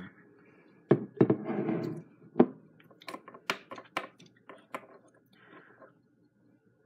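Hot-sauce bottle knocking on a countertop, with a short spell of spattering as sauce is poured into the bottle cap, then a string of light clicks and taps as a rolled tortilla chip is dipped into the sauce in the small plastic cap.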